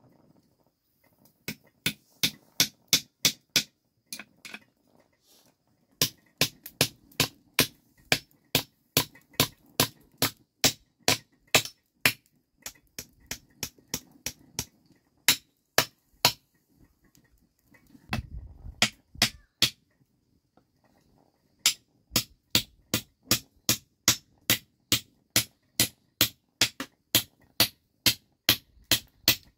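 Claw hammer striking nails into a wooden frame. The sharp blows come in runs of about three a second, broken by short pauses, with a duller low thump a little past the middle.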